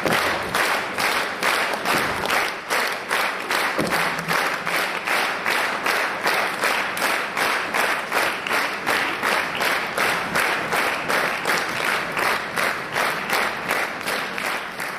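Large audience clapping in unison, a steady rhythm of about three claps a second.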